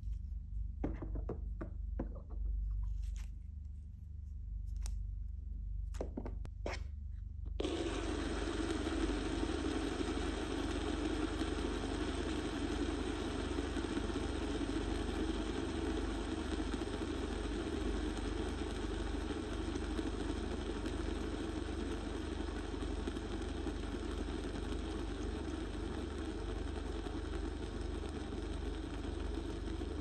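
A few faint snaps from a silicone stretchy-noodle fidget toy being pulled and handled, then, about eight seconds in, a fidget spinner starts up suddenly and whirs steadily for the rest.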